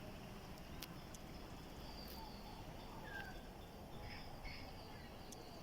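Faint outdoor background noise with a small bird giving a short falling chirp, about three seconds apart, and fainter, higher chirps in between. Two sharp clicks, about a second in and near the end.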